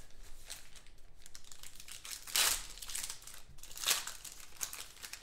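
Foil trading-card pack wrapper crinkling as it is handled and torn open, with two louder rips about two and a half and four seconds in.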